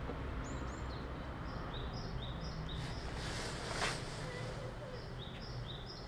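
A small songbird singing a series of short, high, falling notes, higher and lower in turn, about two a second. About three and a half seconds in, a brief noisy swish ends in a sharp click, the loudest moment.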